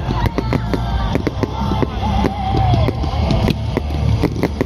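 Fireworks going off in a rapid string of sharp cracks and bangs over a low rumble, with a wavering higher tone about two seconds in.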